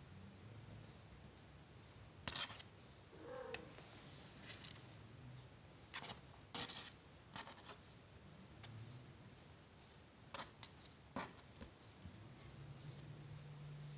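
Young kittens scuffling on a blanket: scattered soft rustles and a handful of short, sharp scratches of paws and claws on the fabric. A low steady hum comes in near the end.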